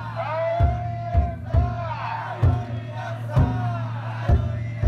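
Festival float's big taiko drum struck in heavy strokes about once a second, with the float bearers' chanted calls in unison rising and falling over a crowd.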